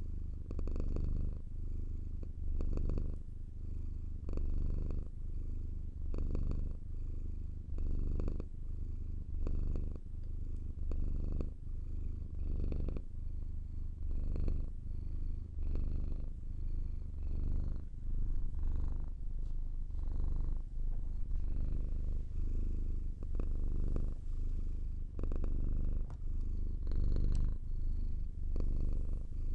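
Domestic cat purring close to the microphone: a continuous deep rumble that swells and eases in a steady rhythm with the cat's breathing.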